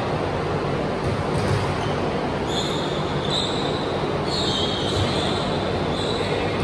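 Steady, loud rushing of large floor fans in a gym. Several high sneaker squeaks on the hardwood court come in the middle.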